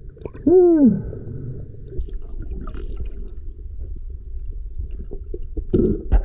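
A person's muffled whoop heard underwater, about half a second in, its pitch rising and then falling. It is followed by a steady low underwater rumble with small clicks and crackles, and a short muffled vocal burst near the end.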